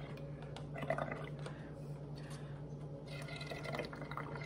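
Air blown through a drinking straw into a cup of soapy paint mixture, bubbling and gurgling softly as the foam builds up, louder for a moment about a second in and again around three seconds in.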